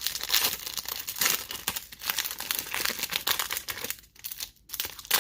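Pokémon booster pack's foil wrapper being crinkled and torn open by hand. There is dense crackling for about four seconds, then sparser crinkles near the end.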